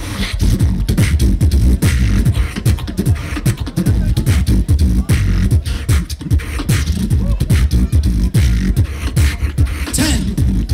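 Human beatboxing amplified through a PA system: a dense, continuous rhythm of vocal kick, snare and hi-hat sounds over deep bass hits, performed into a handheld microphone in a beatbox battle round.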